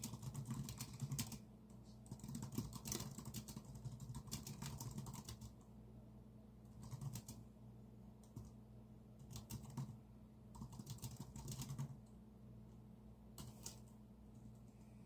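Typing on a computer keyboard in bursts: quick runs of keystrokes broken by short pauses.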